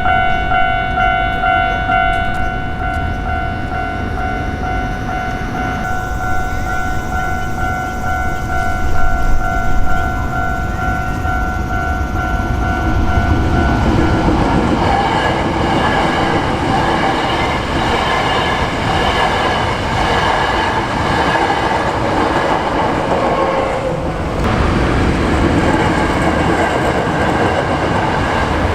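Japanese level-crossing warning bell ringing its repeating electronic tone, which stops about halfway through. A Hankyu Kyoto Line electric train then passes over the crossing, its wheels rumbling and clacking over the rail joints. The noise dips briefly near the end and then picks up again.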